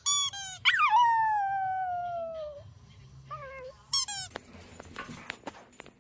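Rubber squeaky dog toy being chewed by a small dog: a quick run of short squeaks, then one long squeak that slides slowly down in pitch for about two seconds, and a few more short squeaks. After about four seconds the squeaking stops and only faint clicks and rustling remain.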